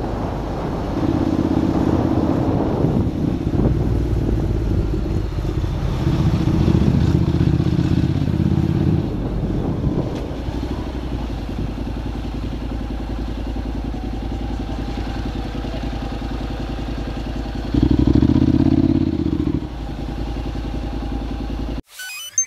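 Honda NC750X DCT motorcycle's parallel-twin engine running under way, its note swelling louder a few times, most strongly near the end. The sound cuts off abruptly just before the end.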